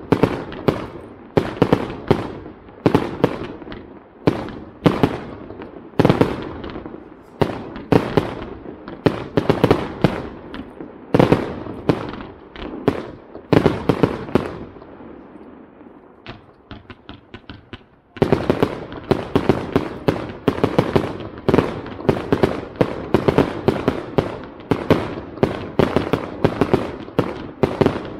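Aerial fireworks display: bursting shells give a quick, irregular series of sharp bangs, one or two a second. Midway the bangs thin out to a few faint crackles, then a dense, rapid volley of bangs starts suddenly and runs on.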